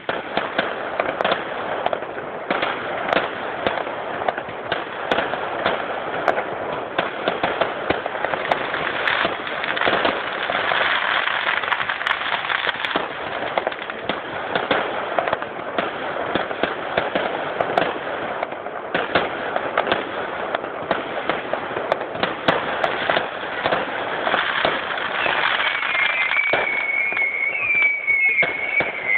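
Fireworks display: a dense, continuous crackling of many small bursts going off in quick succession. Near the end a wavering high whistle rises over the crackle.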